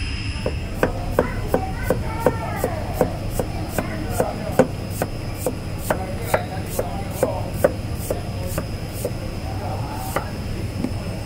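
Cleaver slicing a peeled jicama into thin rounds on a thick wooden chopping board. The blade knocks on the board in an even rhythm of about two to three strokes a second, starting about a second in, over a steady background hum.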